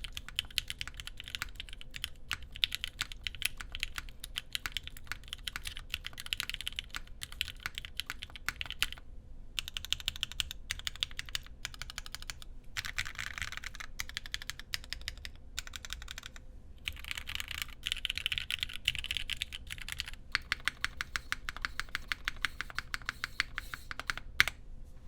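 Continuous fast typing on a Carolina Mech Palmetto60 mechanical keyboard with lubed Gateron Minks linear switches on a full POM plate and GMK doubleshot ABS keycaps: a steady run of keystroke clacks with short pauses. A single louder clack, likely the spacebar, comes near the end, and the typing stops just after.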